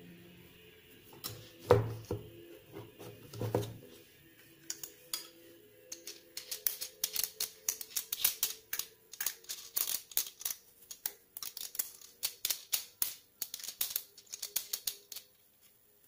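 Hands handling a metal condenser microphone and its shock mount: two dull knocks in the first few seconds, then a long run of quick metallic clicks and rattles as the parts are fitted together, stopping about a second before the end.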